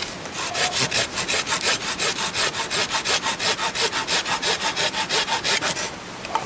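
Small hand saw cutting through a wooden branch: quick, even push-pull rasping strokes, about five a second, that stop shortly before the end, followed by a single small click.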